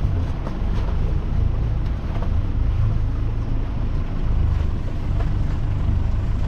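Steady wind rumble on the microphone mixed with the wash of water along the hull of a sailboat sailing upwind in a good breeze, with a few faint ticks.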